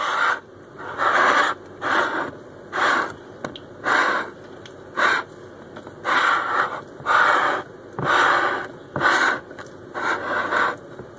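Batter being stirred by hand in a bowl, a utensil scraping and swishing through the thick flour-and-milk mix. It comes as about eleven rasping strokes, roughly one a second.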